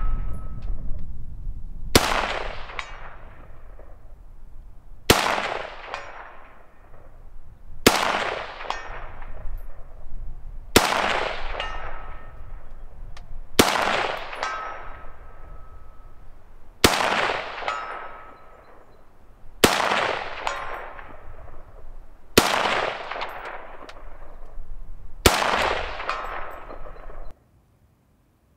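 Nine single shots from a Romanian WASR-10 UF underfolder AK, a 7.62×39 rifle, about three seconds apart, each followed by a long rolling echo. After several of the shots a faint metallic ping comes about a second later: the bullets hitting a distant steel plate.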